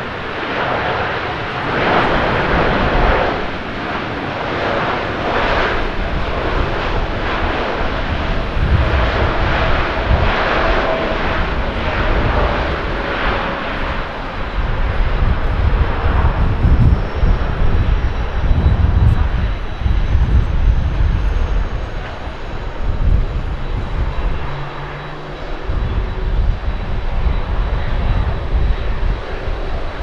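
ANA Boeing 777's twin jet engines roaring as the airliner decelerates on the runway after landing. The roar eases after about fourteen seconds, giving way to a gusting low rumble of wind on the microphone.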